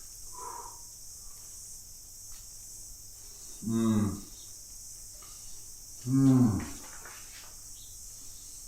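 A man's two appreciative "mmm" hums while chewing a mouthful, each about half a second long and falling in pitch, a couple of seconds apart.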